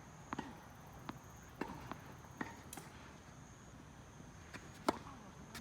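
Sharp knocks of a tennis ball being struck by rackets and bouncing on the court, about six in a few seconds, the loudest near the end.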